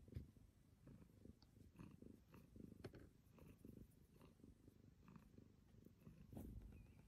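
Cat purring softly while being stroked: a faint, low, pulsing rumble, with a few light rustles of hand on fur and plush bed.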